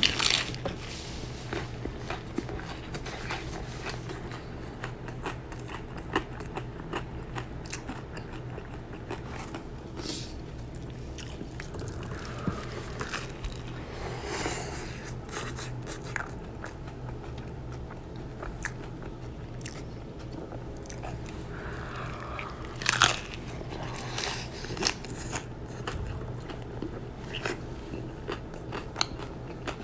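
Close-miked chewing of crunchy fried shrimp tacos: a steady run of crackly crunches, with a few louder bites near the start and about three quarters of the way through.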